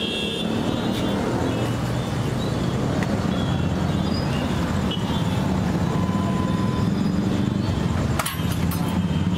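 Steady rumble of road traffic and street noise, with a short clatter about eight seconds in.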